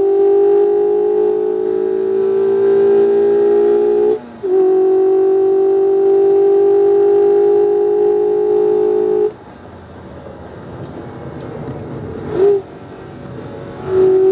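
2019 Mazda MX-5 RF's 2.0-litre four-cylinder engine under full throttle, its pitch climbing steadily, with a brief break about four seconds in as it shifts up. About nine seconds in the throttle closes for braking and it goes much quieter, a short rev blip follows for a downshift, and it comes back on throttle near the end.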